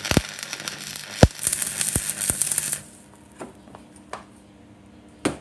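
Stick (arc) welding on a steel motorcycle side stand: the arc crackles and sputters with a few sharp cracks for nearly three seconds, then stops. A few light clicks and taps follow.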